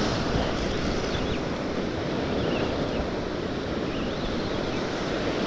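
Ocean surf washing on the beach with wind buffeting the microphone, a steady rushing noise.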